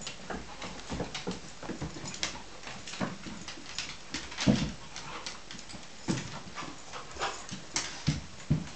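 Pet dogs moving about: irregular quick clicks and scuffles, with a few louder low thumps, the loudest about halfway through.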